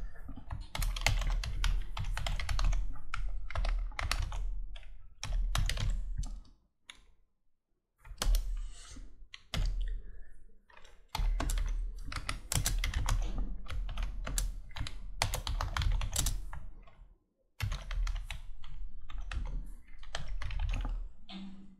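Computer keyboard typing in runs of rapid keystrokes, with a pause of about a second and a half some seven seconds in and a shorter one near the end.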